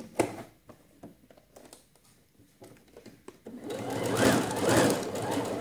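A few small clicks and fabric handling, then from nearly four seconds in an electronic domestic sewing machine running steadily, stitching a seam in cotton shirting.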